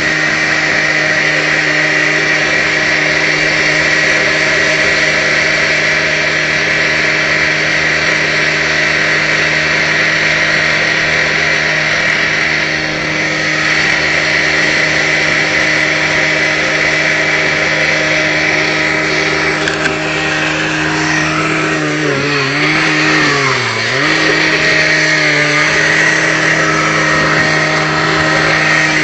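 A power tool's motor running steadily at high speed, its pitch sagging twice about 22 to 24 seconds in as it is loaded, then recovering.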